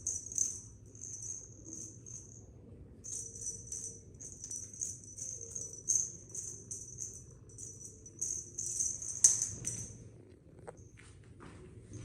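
Small bells jingling in quick runs of shakes, stopping briefly a few times, with one sharp knock about nine seconds in.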